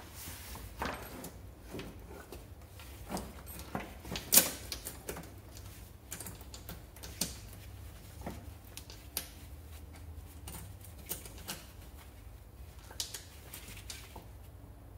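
Irregular metallic clicks and clinks of spanners, sockets and small metal parts being handled and set down, with a sharper knock about four seconds in.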